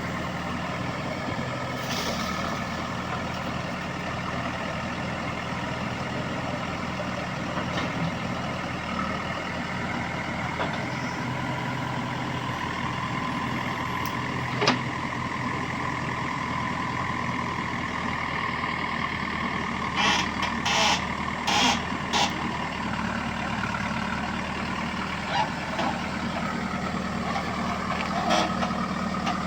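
Diesel engine of a JCB 3DX backhoe loader running steadily during loading work, with a single sharp knock about halfway and several short clanks about two-thirds of the way in.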